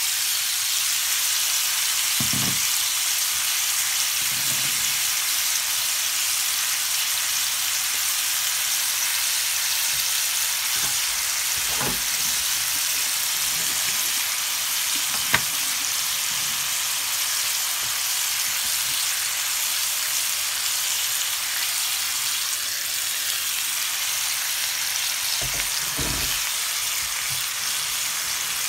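Marinated pork chops sizzling steadily in a hot ridged grill pan, with a few soft knocks and one sharp click about halfway through.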